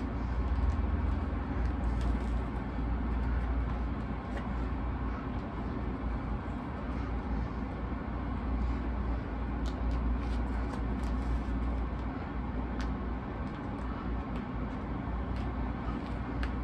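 Steady low background rumble, with a few faint clicks and crinkles of plastic shrink-wrap being cut off a boxed record set, mostly in the second half.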